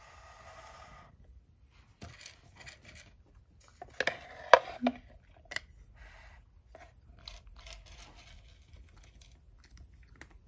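A cat crunching dry kibble: irregular crisp crunches and clicks as it chews, busiest about four to five seconds in.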